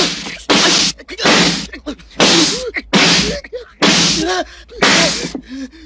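A rapid run of about six loud, swishing face slaps, roughly one a second, with short gasps and grunts between them.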